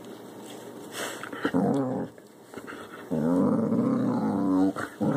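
Belgian Malinois growling while tussling with another dog on a bed: a short growl about a second and a half in, then a long, drawn-out growl from about three seconds in to near the end.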